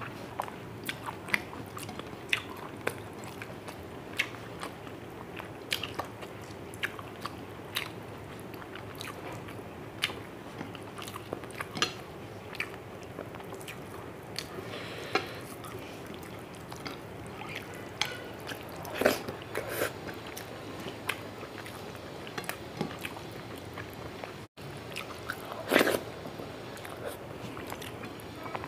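Close-up eating sounds of someone eating rice and fish curry with her hand: chewing and many short wet mouth clicks and smacks, with squelches as fingers mix the rice into the curry, over a steady low background noise.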